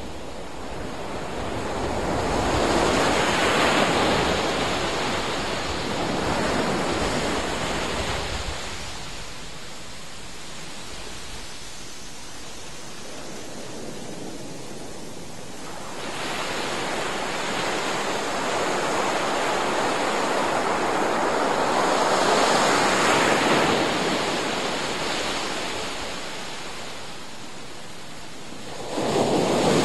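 Ocean surf breaking and washing up a sandy beach, swelling and fading in slow surges. One surge comes a few seconds in, then a quieter lull, a long swell through the second half, and a new wave rising sharply near the end.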